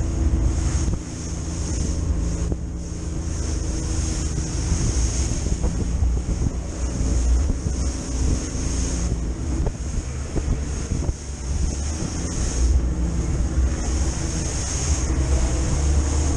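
Aluminum boat running at speed through choppy water: the outboard motor running steadily, water rushing and slapping against the hull, and heavy wind buffeting the microphone.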